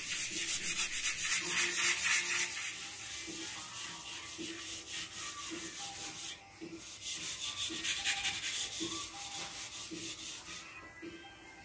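A rag rubbed by hand over a lithographic stone in quick back-and-forth scrubbing strokes, with a short pause about six seconds in.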